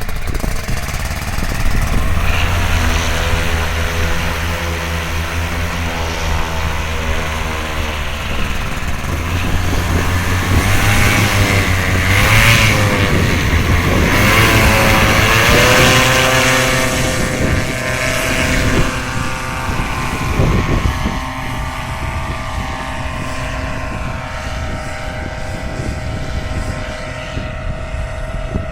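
Paramotor engine and propeller running hard, the engine pitch climbing and dipping several times as the throttle changes, loudest around the middle.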